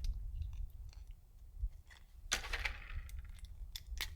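Cartridges being pressed one by one into a Glock 43X pistol magazine: scattered small metallic clicks, with a louder scrape about two and a half seconds in, as the stiff magazine fills.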